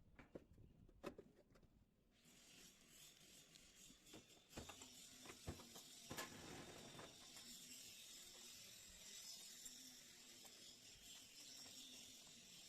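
Near silence, with faint scattered clicks and knocks and a low hiss from about two seconds in.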